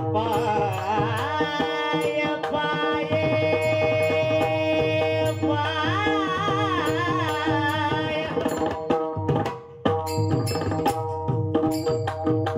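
Marathi Warkari devotional song: a singer holds a long ornamented, wavering melodic line over steady pakhawaj drum strokes and a sustained drone. The voice stops about two-thirds of the way through, and after a short break the pakhawaj carries on with the drone.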